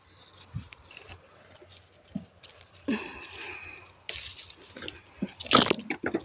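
Apple tree leaves and twigs rustling and rattling as the branches are pushed through and handled, in irregular bursts with sharp crackles, loudest near the end.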